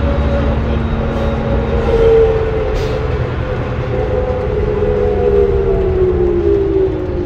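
Interior ride sound of a 2003 New Flyer D40LF diesel transit bus, heard inside the passenger cabin: a steady low rumble from the engine and drivetrain, with a whine that rises briefly about two seconds in and then falls slowly in pitch, as the bus slows.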